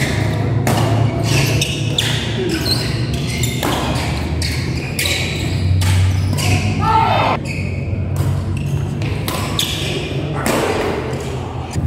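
Badminton rally: rackets striking a shuttlecock again and again in quick exchanges, ringing in a large hall. Spectators' voices and a steady low hum run underneath.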